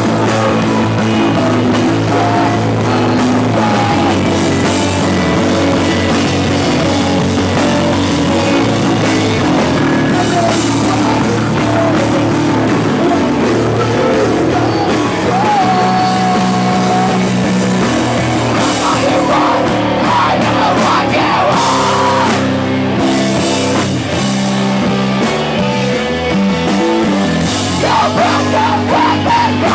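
Live rock band playing a song at full volume: electric guitars and a drum kit, with singing in places.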